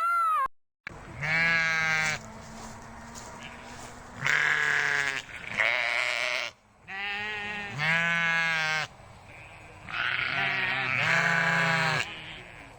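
A farm animal bleating: several long, wavering bleats about a second each, repeated every couple of seconds.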